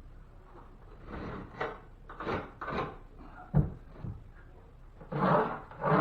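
Drywall and wood backing being handled during a ceiling patch: a series of short scraping and rubbing strokes, with a sharp knock about three and a half seconds in and louder strokes near the end.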